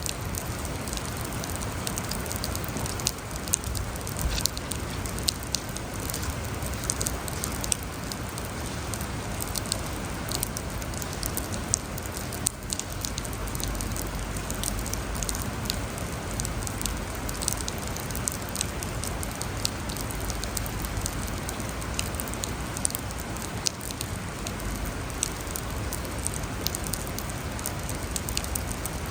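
Steady rain falling, with many individual drops ticking sharply and irregularly over an even hiss.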